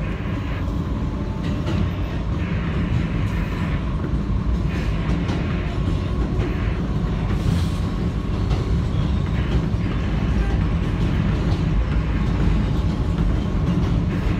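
2008 Kawasaki R160B subway car with Siemens propulsion running at speed on elevated track, heard from inside the car. It makes a steady low rumble of wheels on rail with recurring clatter, swelling slightly louder over the first couple of seconds.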